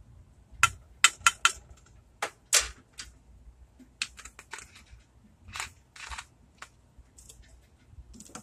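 Sharp clicks and clacks of hard plastic being handled: a set of red plastic measuring spoons clattering as they are put down, with a quick run of three clicks about a second in and more scattered through the rest.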